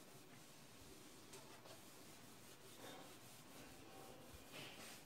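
Faint rubbing of a duster wiping a whiteboard clean, in a few soft strokes.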